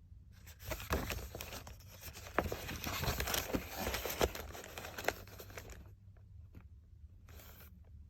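Paper pages of an owner's manual being handled and turned, a crinkly rustling with sharp clicks for about five seconds, then a short rustle near the end.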